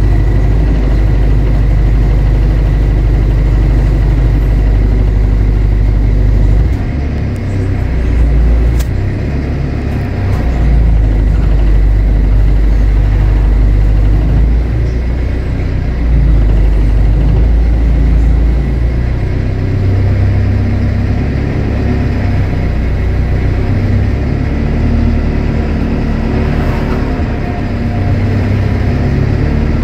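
Bus engine and road noise heard from on board: a steady low rumble whose note shifts up and down several times as the bus changes speed, with a faint steady whine and a few light clicks.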